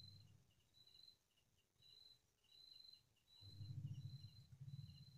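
Night insects chirping: a high, thin trill that repeats about once a second, with quicker double chirps in between. About three and a half seconds in, a low rumble joins them.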